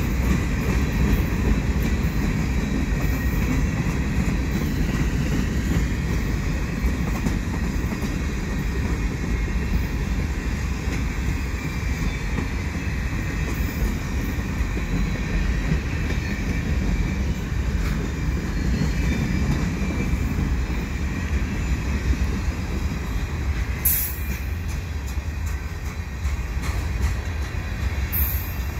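Freight cars of a Canadian Pacific mixed freight train rolling past close by, making a steady low rumble and clatter of steel wheels on the rails. At times there is a faint wheel squeal, and near the end two brief, sharp, high-pitched squeaks.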